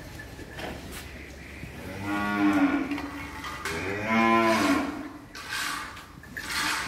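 Dairy cow mooing twice, each call about a second long, with a pitch that rises and then falls.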